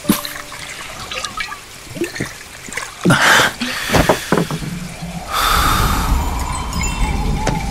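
Audio-drama sound effects: a sharp, gasp-like breath and dripping water, with a loud rushing burst about three seconds in. From about five and a half seconds a steady rushing noise takes over.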